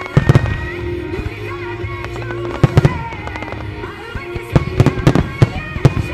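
Starmine fireworks display: sharp reports of shells bursting in quick clusters, about half a second in, around three seconds and again through the last second and a half, over music.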